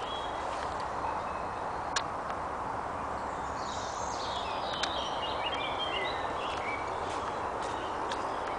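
A songbird sings a quick, jumbled phrase of chirps and trills lasting about four seconds, starting around three seconds in, over a steady hiss, with a few sharp clicks of footsteps on a dirt path.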